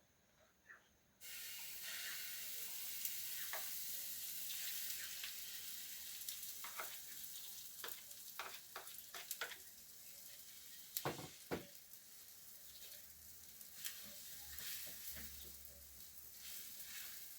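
Food frying in a hot pan: the sizzle starts suddenly about a second in and slowly fades, with scattered clicks and knocks of a utensil against the pan, two louder ones near the middle.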